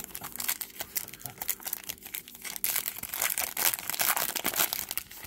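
A foil trading-card pack wrapper being torn open and peeled apart by hand, with dense, continuous crinkling and crackling of the foil.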